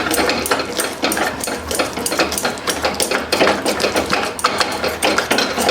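A spoon clinking and scraping quickly and irregularly against a small bowl while dry sugar is stirred without water over a gas flame until it melts.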